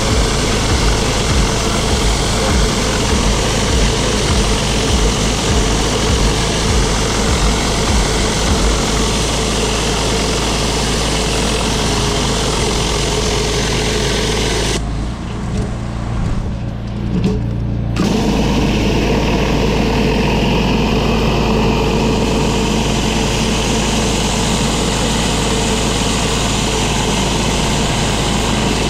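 Gas-engine pressure washer running steadily, with the hiss of the high-pressure water spray on concrete. About halfway through the spray stops for around three seconds while the engine keeps running, then starts again.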